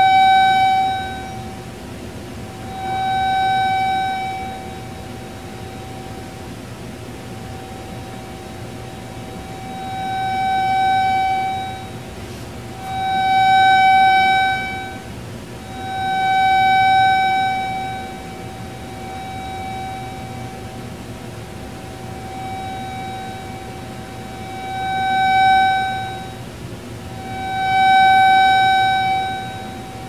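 A steady, high, pure-sounding electronic tone, the microwave receiver's detected signal made audible through a loudspeaker. It swells loud and fades back about eight times as the receiver is slid along its rail through the interference maxima and minima.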